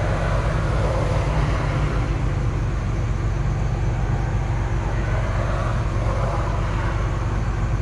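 Hydraulic excavator's diesel engine running steadily, heard from the operator's seat, a constant low hum with no change in speed.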